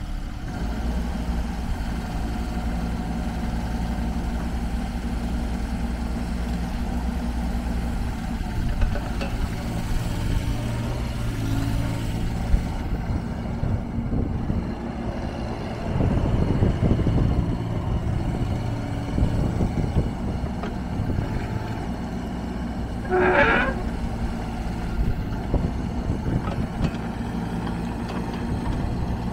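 JCB 15C-1 1.5-tonne mini excavator running, its diesel engine going steadily as the boom, bucket and slew are worked, swelling louder a couple of times partway through. A brief squeal sounds about three-quarters of the way through.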